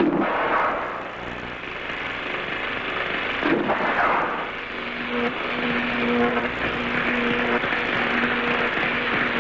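Science-fiction sound effect for a robot's electric force field: a steady rushing hiss that surges at the start and again about three and a half seconds in. About halfway through, a low hum joins it, pulsing on and off about once a second.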